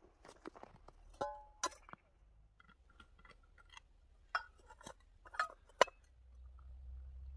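Steel vacuum flask being opened by hand: a metallic clink with a short ring as the cup-lid comes off, then a series of sharp clicks and knocks as the lid and stopper are handled and unscrewed. A low rumble builds near the end.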